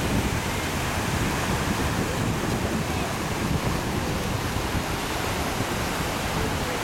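Steady wash of small sea waves on the shore, with wind buffeting the microphone.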